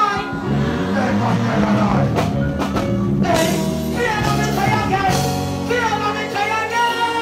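Live dancehall performance: a male artist deejaying into a microphone over a loud backing track with a steady beat, through a concert sound system.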